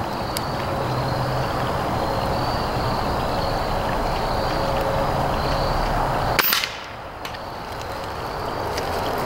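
Stoeger S4000-E .22 break-barrel pellet rifle, with a noise suppressor built into its barrel, firing one shot: a single sharp crack about six and a half seconds in, over a steady rushing background.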